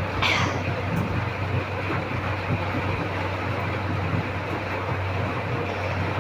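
A steady low hum under a constant rushing noise, like a machine running, with a short breathy hiss about a third of a second in.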